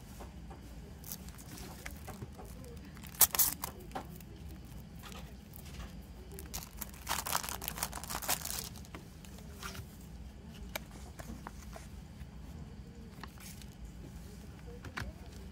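Cellophane shrink-wrap being torn and peeled off a plastic CD jewel case: a sharp tear about three seconds in, then a couple of seconds of crinkling film. After that come scattered light clicks and rustles as the case and its paper obi strip are handled.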